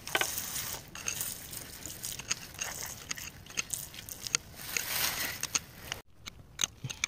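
A thin jet of water spraying onto rock and an embedded agate, hissing and spattering, with many small crackling ticks as it washes over gritty stone. The sound cuts off abruptly about six seconds in.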